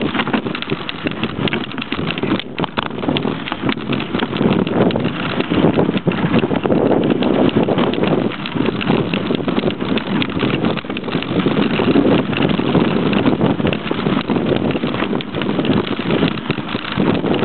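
Mountain bike riding over a rough dirt and gravel trail, heard from a camera carried along on the ride: a constant clatter of knocks and rattles from the bumps, mixed with wind on the microphone.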